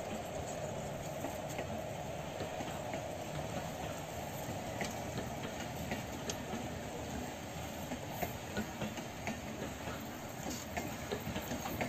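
Train of milk tank wagons rolling past on the rails: a steady rumble with irregular clicks and clanks from the wheels, which come more often in the second half.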